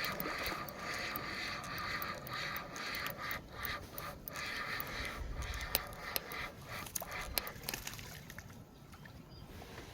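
Fishing reel being cranked against a hooked catfish: a steady whirring with scattered sharp ticks, which dies away about eight seconds in.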